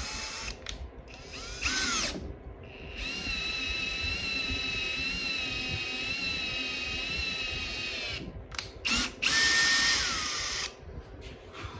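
Cordless drill driving a 1/4-20 tap to thread a hole in an aluminum plate, the motor whining in bursts: two short ones, a steady run of about five seconds in the middle, then two more short ones, the last winding down.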